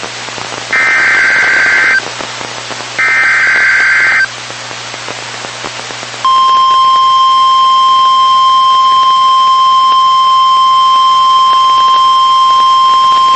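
Emergency alert SAME header data: two short buzzing two-tone digital bursts about a second apart. After a pause of about two seconds, the steady single-pitch NOAA Weather Radio 1050 Hz warning alarm tone comes on about six seconds in and holds, announcing a warning message.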